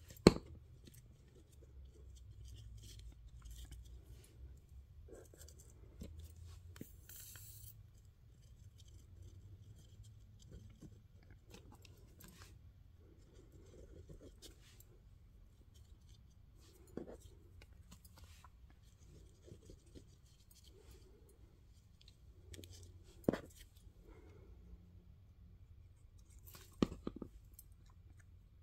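Handling of paper, lace and a plastic glue bottle on a cutting mat: soft rustling with a few sharp taps and knocks, the loudest right at the start.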